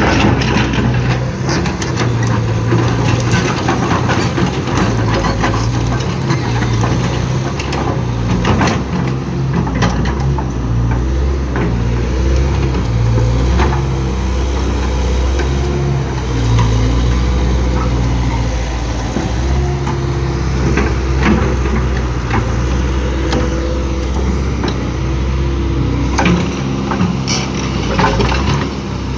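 Heavy construction machine's engine running, its pitch rising and falling in steps as it works, with intermittent sharp metal clanks and knocks.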